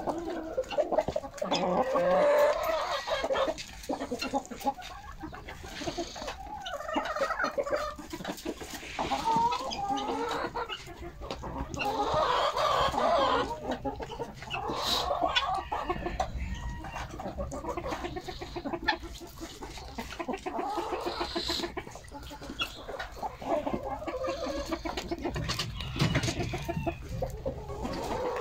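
A flock of domestic hens clucking, with short calls from several birds overlapping one another.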